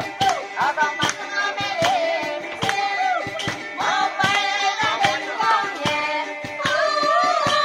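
Upbeat dance music with a steady quick beat and a wavering lead melody.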